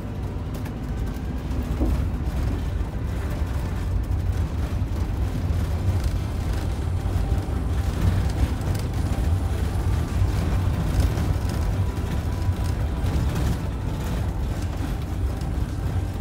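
Cab noise of a Fleetwood Bounder motorhome driving slowly on a gravel road: a steady low engine and road rumble, with tyre noise from the gravel.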